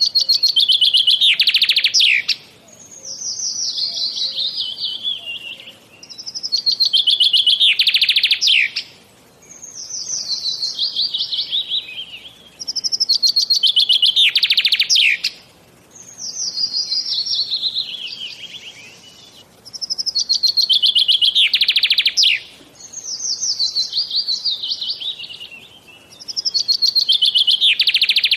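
A songbird singing loud, high-pitched phrases that alternate in a regular pattern: a rapid trill ending in a sharp downward sweep, then a run of notes stepping down in pitch, each phrase about three seconds long, repeated over and over.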